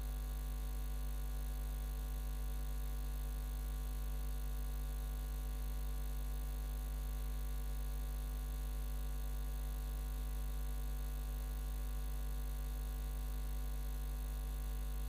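Steady electrical hum: a low drone with a stack of fixed buzzing tones above it, unchanging throughout, with no other sound.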